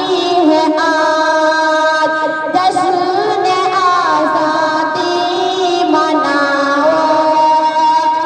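A young girl singing solo into a handheld microphone, holding long notes that waver and glide, with short breaths between phrases.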